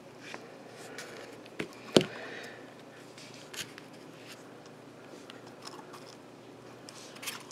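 Small clicks and scrapes of a plastic drone arm and its wiring being handled and picked at with a small hand tool. One sharper click comes about two seconds in.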